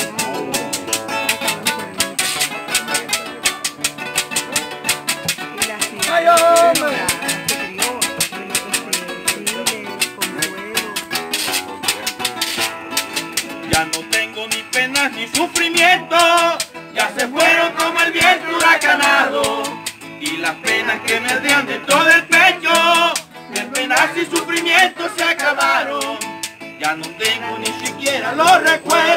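Live vallenato paseo played by a trio: two acoustic guitars strumming and picking over a steady maraca shake, with a man's voice singing the melody from about six seconds in.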